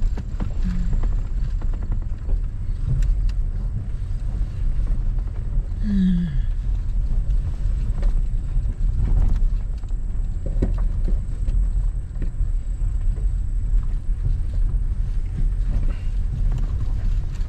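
Toyota Tundra pickup crawling over a rocky off-road trail: a steady low rumble of engine and drivetrain. A short falling squeal comes about six seconds in, and a few light knocks.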